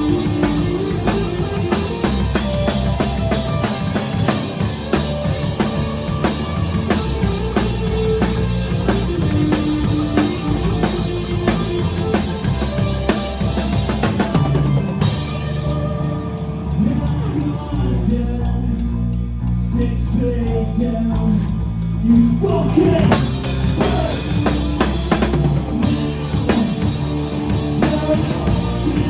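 Live rock band playing an instrumental passage on drum kit, bass and electric guitar. About halfway through the drums and cymbals drop out for several seconds, leaving bass and guitar, then the full kit comes back in.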